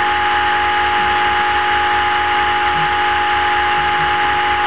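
Homemade Orbo-style magnet motor running, its eight-magnet CD rotor spinning past pulsed coils: a steady high whine over a rapid, even buzzing pulse.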